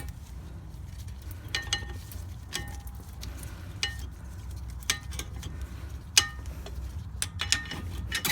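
Metal parts clinking and tapping as worn brake pads are worked out of a disc brake caliper bracket: about a dozen separate sharp, briefly ringing clinks spread over several seconds, over a steady low hum.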